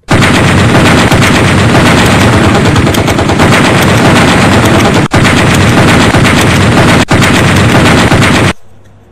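Sustained automatic rifle fire, very loud and continuous, broken only by two very short gaps about five and seven seconds in, then stopping suddenly near the end.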